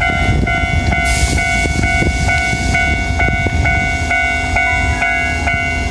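Electric railway warning bell ringing steadily about twice a second, over the low rumble of an Enshu Railway 2000-series train standing at the platform before departure. A short hiss of air comes about a second in.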